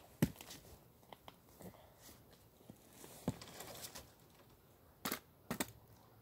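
Faint, scattered rustling, scraping and knocks of a person climbing among tree branches, with two louder scuffs about five seconds in.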